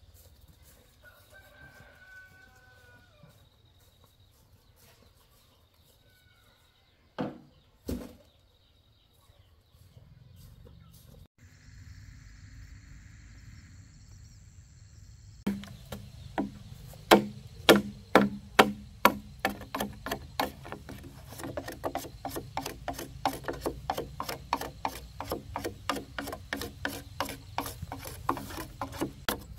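A rooster crows faintly near the start, and two sharp knocks come about a quarter of the way in. About halfway through, a steady run of fast, even scraping strokes begins, about three or four a second: a hand tool working wood or bamboo.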